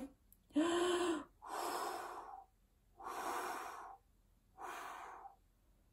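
A woman breathing out hard through her mouth four times, each breath about a second long, the first one voiced.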